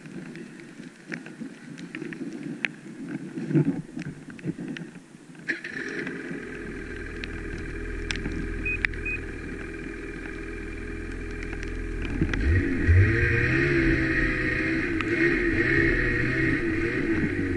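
Ski-Doo snowmobile engine, quiet at first, then throttling up about five seconds in as the sled pulls through deep powder snow. It gets louder again near the end, with a wavering engine note.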